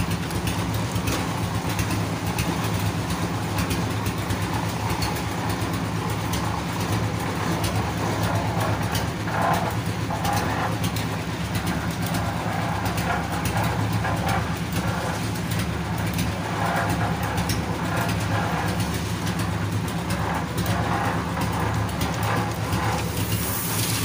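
Engine of a site concrete mixer running steadily with an even, low drone as the drum turns concrete for a roof slab.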